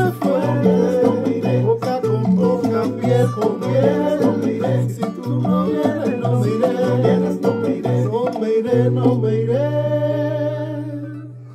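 A Spanish-language song playing, with plucked guitar over a repeating bass line and singing. About nine seconds in it settles on one long held final chord, which fades away near the end.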